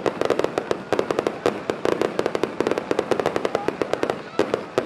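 Starmine fireworks barrage: a dense, rapid string of bangs and crackling bursts from many small shells fired in quick succession.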